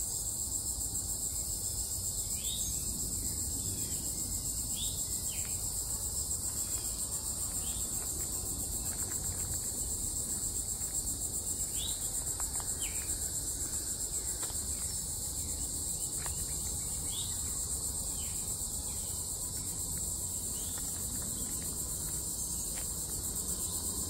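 A steady, high-pitched chorus of insects buzzing, with short bird chirps every few seconds over it.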